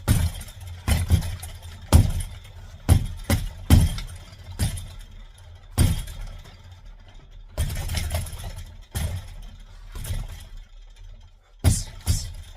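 Fists striking a reflex bar's punching ball, about a dozen sharp thuds at an uneven pace.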